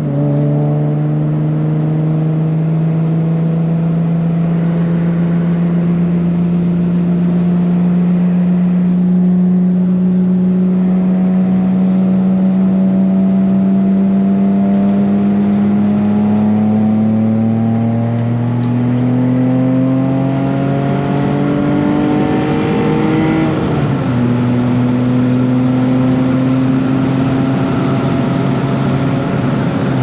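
Nissan Maxima's VQ-series V6 engine pulling under load, heard from inside the cabin over road and wind noise. The engine note drops sharply at the start as the gearbox is shifted up, then climbs slowly and steadily through the gear. About 23 seconds in it drops again with another upshift and then holds steady.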